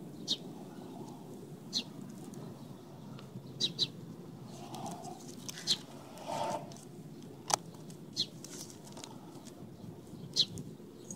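Short high bird chirps every second or two over a low steady hum, with one sharp click a little past the middle.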